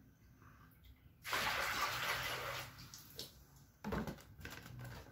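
Soaking water poured off a basin of mung beans: a steady rush of water about a second in, lasting about a second and a half, then a few light knocks as the basin is set back down.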